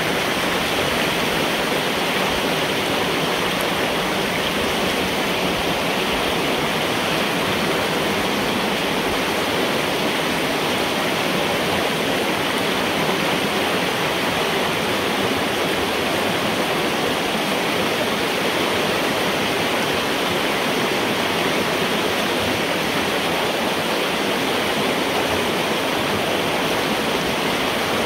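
Floodwater rushing steadily through a metal culvert pipe, pouring through and over a partly cleared beaver dam of sticks and mud, heard from inside the pipe.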